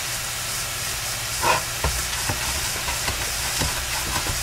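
Ground beef sizzling in a frying pan, a steady hiss, with a few light knocks from about a second and a half in.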